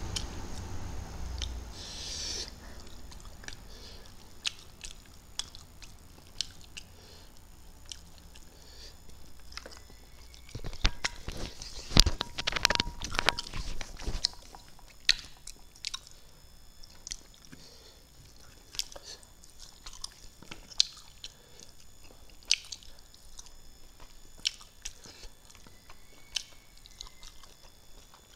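A person eating fish and rice with the fingers: chewing with lip smacks and sharp mouth clicks scattered throughout, louder and more frequent for a few seconds around the middle.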